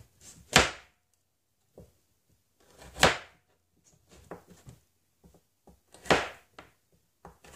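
Kitchen knife chopping carrot on a plastic cutting board: three loud chops roughly three seconds apart, with lighter knife taps between them.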